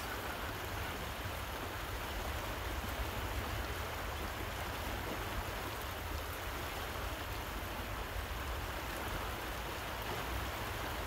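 Fast, churning river current rushing steadily, with a deep low rumble underneath.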